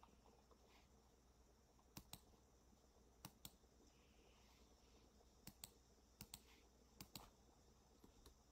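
Faint clicks in quick pairs, five pairs about a second apart, over near-silent room tone.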